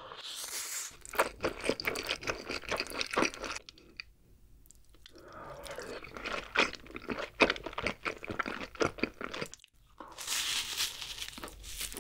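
Close-miked eating sounds: noodles sucked in, then loud, wet, crunchy chewing with a short pause about four seconds in, and near the end bites into a crunchy black choux pastry.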